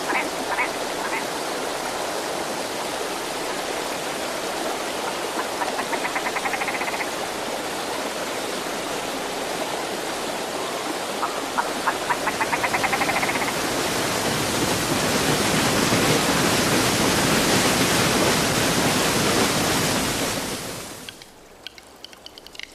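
River rapids rushing: a steady rush of water that grows louder partway through and falls away suddenly near the end. Two short, rapid trills stand out above it.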